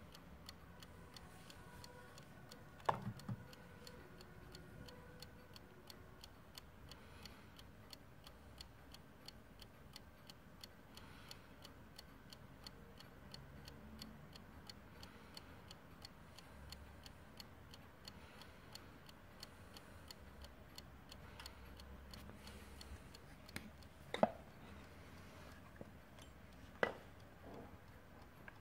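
Brass 8-day movement of a Dutch Warmink bracket mantel clock ticking steadily and faintly. A few louder single knocks come about three seconds in and twice more near the end.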